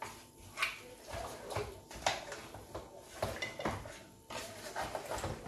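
Wooden spoon stirring chunks of raw goat meat in a stainless steel pot, with irregular knocks and scrapes against the pot.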